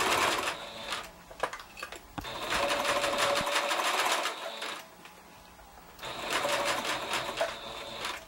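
Electric sewing machine stitching through coiled cotton clothesline rope in three short runs, stopping and starting between them, with a few clicks in the pauses.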